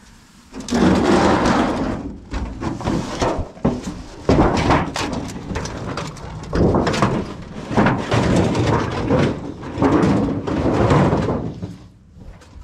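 Rough scraping and knocking in irregular bursts, as of scrap items (vents, a door) being dragged and handled.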